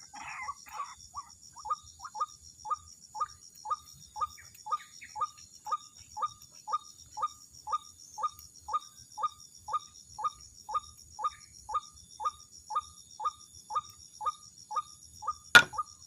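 White-breasted waterhen calling: a few harsh croaking notes at the start give way to a long run of short, evenly repeated 'kook' notes, about three a second. A steady, pulsing insect drone sits high above, and a single click comes near the end.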